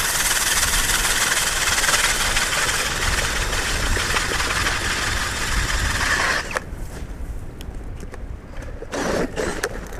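Power ice auger drilling a hole through lake ice, running for about six and a half seconds and then cutting off suddenly. Even with sharp blades, the auger is not cutting as well as it once did.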